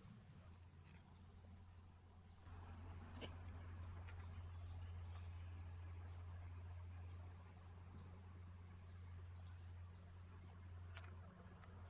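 Faint steady high-pitched insect trill, like a cricket, over a low steady hum, with a couple of faint clicks from metal valve parts being handled.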